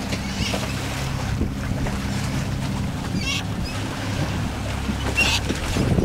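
Wind buffeting the microphone and water rushing and slapping along a sailboat's hull as it sails, over a steady low hum, with a couple of brief high squeaks about three and five seconds in.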